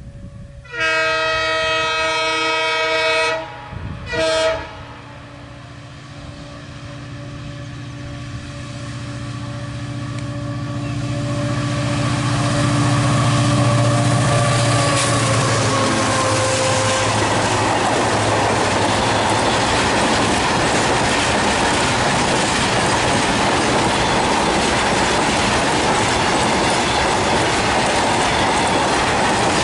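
EMD WDG4 diesel-electric freight locomotive sounding its horn, one long blast then a short one, then its 16-cylinder two-stroke diesel engine drones louder under power as it approaches and dips slightly in pitch as it passes. The freight wagons then roll by in a steady loud rumble of wheels on rails.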